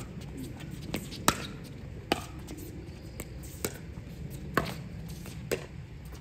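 Pickleball rally: paddles hitting the hollow plastic ball with sharp pops, about one a second, the loudest about a second in.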